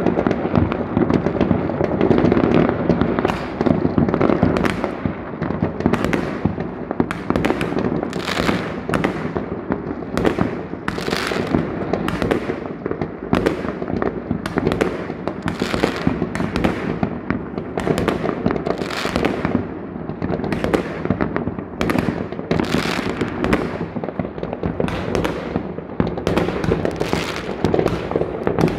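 Many fireworks going off at once: a constant crackling and popping with sharp bangs about once or twice a second, densest in the first few seconds.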